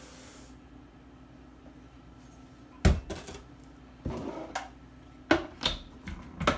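Toasted sesame seeds hissing as they pour into a Vitamix blender's plastic container for the first half second, then one sharp knock about three seconds in. In the last two seconds, a run of plastic clacks and knocks as the blender lid is picked up and fitted onto the container.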